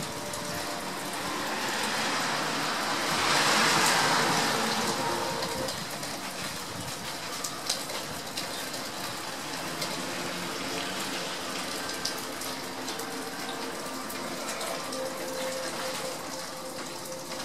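Steady rain falling, with a louder rush of noise that swells and fades away a few seconds in.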